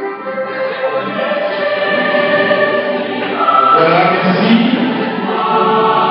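Music with a choir singing, held notes that swell louder and fuller about halfway through.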